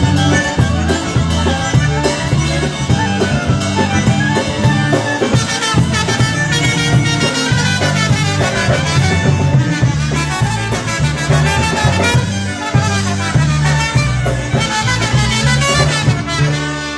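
Live polka band playing an instrumental passage with a steady beat, bass and drums under the melody, easing off slightly near the end.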